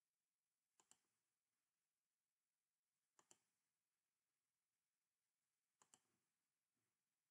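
Near silence, broken by three faint double clicks about two and a half seconds apart: button clicks paging through a set of photographs.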